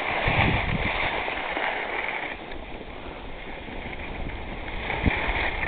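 Skis sliding and scraping over packed snow, mixed with wind rushing over the microphone of a camera carried by a moving skier. A short low knock about five seconds in.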